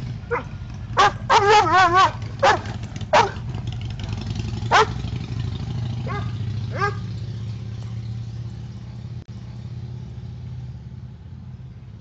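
A dog barking and yelping in short calls, about a dozen in the first seven seconds, some of them wavering in pitch, then stopping. A steady low hum runs underneath.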